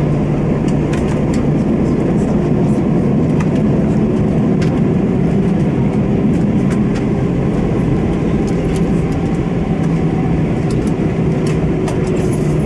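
Cabin noise of an Airbus A321 taxiing slowly, heard from a window seat beside the wing: its CFM56-5B turbofans at idle give a steady low rumble with a constant hum.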